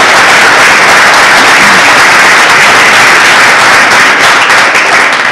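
Audience applauding, a dense steady clapping that begins to die down near the end.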